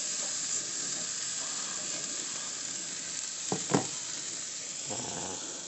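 Hamburger patties and hot dogs sizzling on a charcoal kettle grill's grate, a steady hiss, with a couple of sharp clicks about three and a half seconds in.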